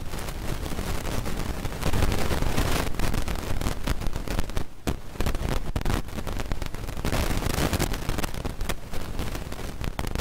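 Wind buffeting the microphone: a rough, crackling rumble, with a short break about five seconds in.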